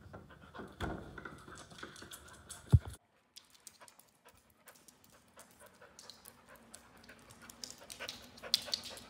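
A small dog panting close to the microphone, with a single thump just before three seconds in. Scattered light clicks of its claws on a hardwood floor follow.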